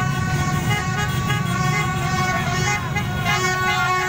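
A crowd of motorbikes and cars honking their horns over and over, many horns overlapping, over the low running of the engines: celebratory honking in a street parade.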